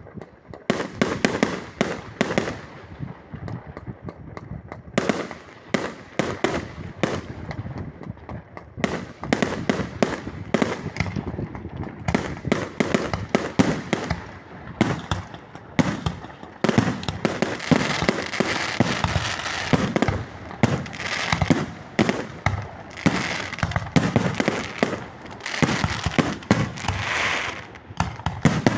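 Fireworks going off: a rapid, near-continuous string of sharp bangs and crackles that grows denser and louder about halfway through.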